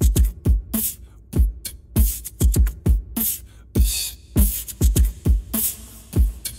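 Background hip-hop music: a steady drum beat of deep, pitch-dropping kick drums and sharp snare or clap hits.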